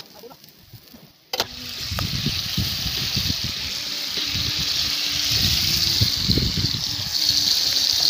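Wind blowing across a phone's microphone: a steady rushing hiss with irregular low buffeting rumbles, starting abruptly about a second in.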